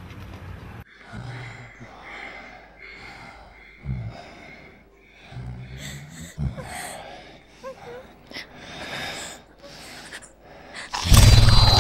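A person gasping and breathing raggedly in short uneven breaths, a few with a low voiced catch. Just before the end a loud sound cuts in suddenly.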